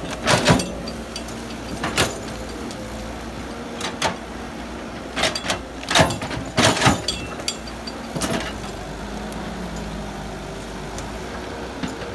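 Excavator engine running steadily, with a series of sharp metallic clanks and knocks at irregular intervals from the machine working.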